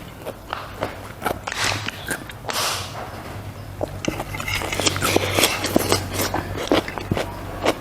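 A person chewing and biting food close to the microphone, wet mouth sounds and crunches with many sharp clicks, over a steady low hum.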